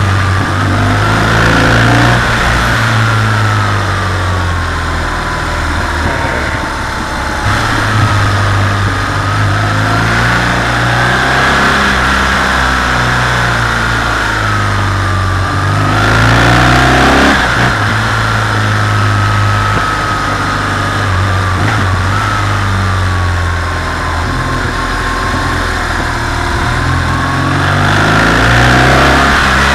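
BMW R 1200 GS boxer twin engine running on the move, its pitch rising as the throttle opens and falling as it closes again, several times through a series of bends, over a steady rush of wind.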